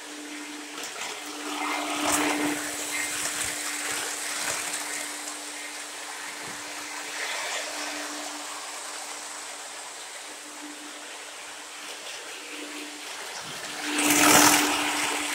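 Lionel O gauge model train running on gray track: a continuous rushing of wheels on rails over a steady hum, with a loud swell near the end.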